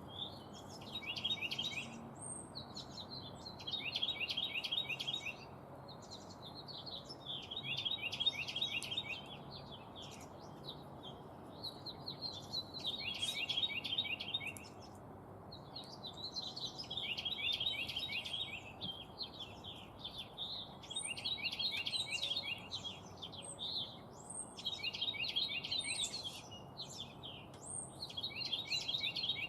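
A small songbird singing a fast, even trill of short notes, each song lasting about a second and a half and repeated every few seconds, with short high chip calls between the songs.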